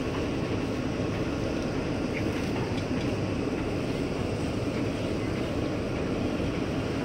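Steady, even rumble of a large car ferry's machinery heard on its open foredeck.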